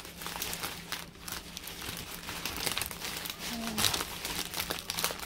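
Clear plastic bags crinkling as hands shift and press a bag packed with small packets of diamond painting drills: a run of quick, irregular crackles.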